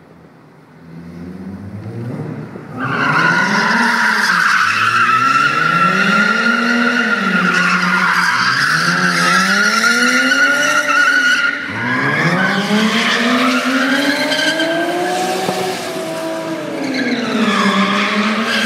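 Car spinning donuts on concrete, with thick tyre smoke. The engine revs rise and fall again and again while the tyres screech without a break from about three seconds in, easing briefly near the twelfth second.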